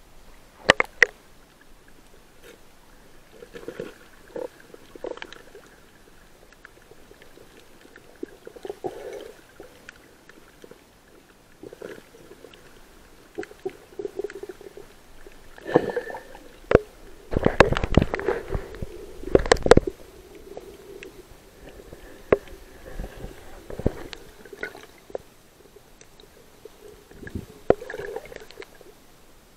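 Sea water sloshing and bubbling around a camera moving through and under the surface, with irregular splashes and knocks; the loudest stretch comes about 17 to 20 seconds in.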